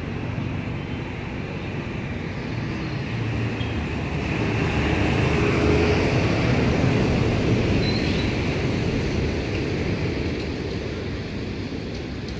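Road traffic rumbling steadily, swelling as a vehicle passes close by about halfway through and then fading away.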